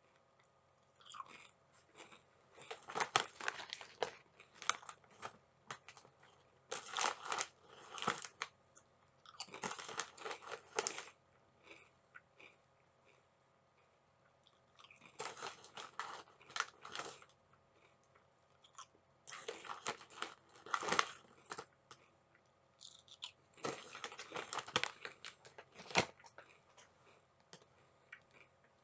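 A person crunching and chewing sweet chili crisps close to the microphone, in six bouts of crunching a couple of seconds each with short quiet pauses between.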